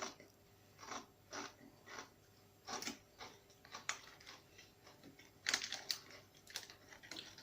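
Tortilla chips being bitten and chewed: a series of irregular crisp crunches, closer together near the end.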